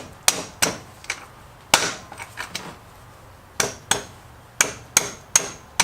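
A series of about a dozen sharp knocks, spaced irregularly with short pauses, as the freshly greased rear axle and wheel of a Kawasaki KLR650 are worked into place.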